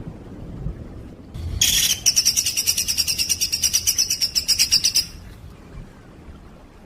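A songbird's rapid trill of sharp, evenly repeated high notes, about ten a second, lasting a little over three seconds before it stops abruptly; a masteran song recording of the fast 'tembakan' type.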